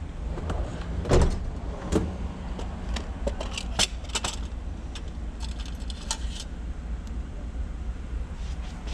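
Metal tools clinking and ticking in a spark plug hole as its threads are cleaned out, a handful of sharp clicks spread through the first half, over a steady low rumble.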